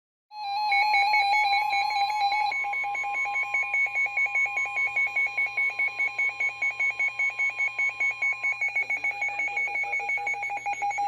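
Emergency Alert System attention tone: steady, high-pitched electronic alarm tones with a fast, regular flutter, starting abruptly, which announce an incoming broadcast emergency warning.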